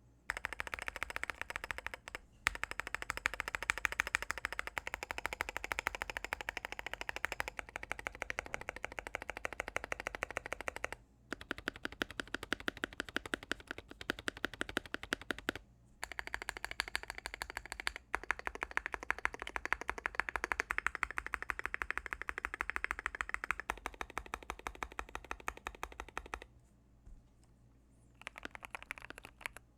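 Fast, continuous typing on a mechanical keyboard with Gateron Pro Yellow linear switches, mounted in an Akko MOD005 case with EVA gaskets and fitted with ASA-profile keycaps: a dense stream of key clacks. It breaks off briefly three times and stops for about two seconds near the end.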